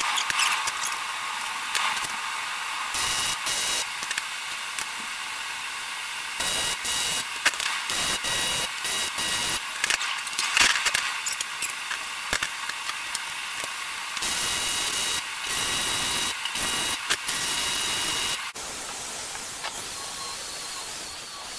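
MIG welder arcing on steel tube in short stop-start runs of crackling hiss. From about 18 seconds in, an angle grinder takes over, grinding steel with a steadier, slightly wavering whine.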